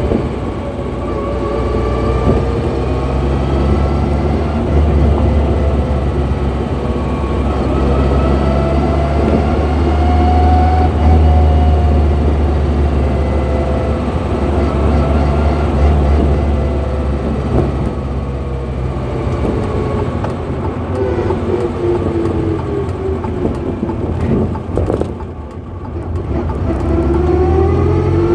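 Whining H1R4 gearbox under way, its gear whine rising and falling in pitch with road speed over the steady run of the engine, heard from inside the cab. About 25 seconds in the whine briefly drops away, then climbs again as the vehicle pulls away.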